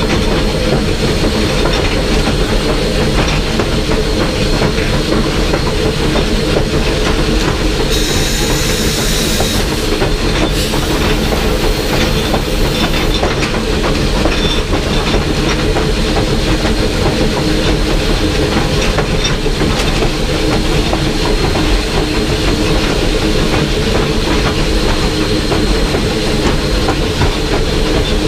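Running noise in the cab of steam locomotive No. 25 under way: a steady rumble with constant clatter and rattle from the engine and its wheels on the rails. Two bursts of hiss come about eight seconds in, the second running from about ten to thirteen seconds.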